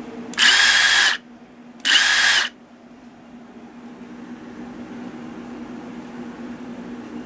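Milwaukee 2857 1/4-inch hex impact driver spinning freely twice in quick succession, two short trigger pulls each under a second, with a steady high motor whine and no impacting. The tool is set in its One-Key app to a 3,600 RPM maximum speed.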